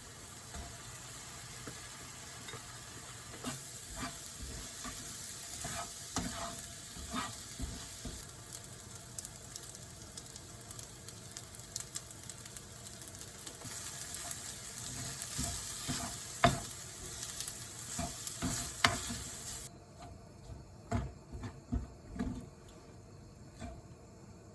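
Fried rice with salted squid frying in a pan, sizzling steadily while a spatula stirs it with scattered scrapes and knocks. The sizzling cuts off suddenly about 20 seconds in, leaving a few quieter taps.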